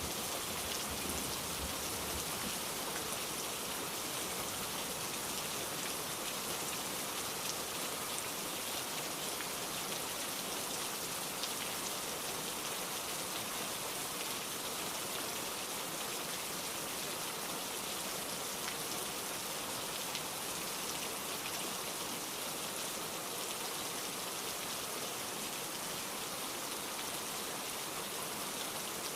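Heavy downpour: a steady, dense rain hiss with no letup, the last of a low thunder rumble dying away in the first second.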